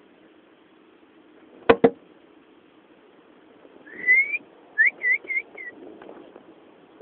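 Two sharp clicks, then whistling: one rising whistle followed by four short whistled notes in quick succession.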